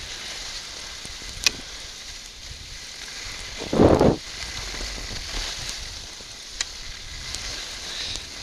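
Skis hissing and scraping over snow while skiing downhill, with a couple of sharp clicks and a short, loud rush of noise about four seconds in.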